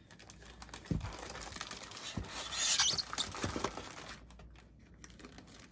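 Packaging being handled during an unboxing: irregular rustling and crinkling with a few soft knocks, and a louder crinkle about three seconds in.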